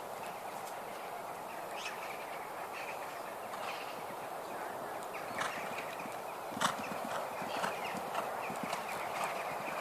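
Horses' hooves on a sand arena, with a horse cantering: irregular thuds and clicks over a steady background noise, with the sharpest knock about six and a half seconds in.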